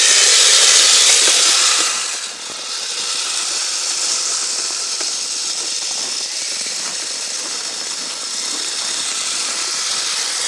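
Kyosho Blizzard FR radio-controlled snowcat driving on hard-packed snow: its electric motor, gearing and plastic tracks running with a steady high-pitched hissing clatter, loudest for about the first two seconds.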